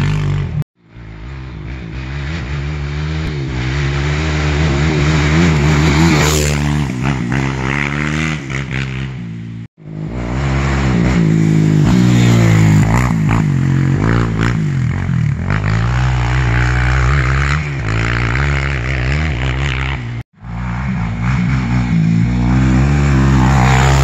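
2010 Suzuki LT-R450 quad's 450 cc single-cylinder four-stroke engine, its stock exhaust baffle removed, revving hard and rising and falling in pitch as it is ridden through the gears. The sound cuts off briefly three times.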